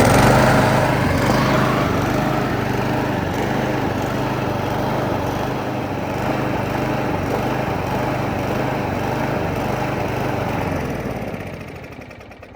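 Kohler Courage XT single-cylinder overhead-valve engine on a Craftsman push mower, running steadily just after a pull start. Near the end it fades out and dies: its fuel tank has run empty.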